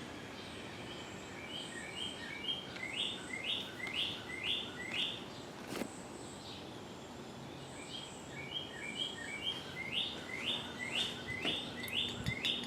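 A songbird sings two phrases of repeated slurred whistled notes, about two a second, each phrase growing louder. Under it is the steady low hum of a ceiling fan running on medium speed. There is a single sharp click about halfway through.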